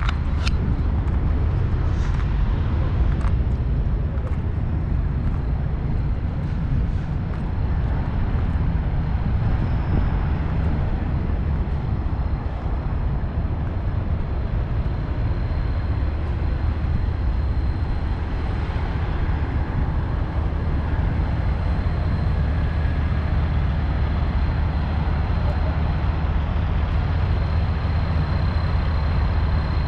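Steady low rumble of idling truck and vehicle engines, with a faint high-pitched whine held over it and a few light clicks in the first seconds.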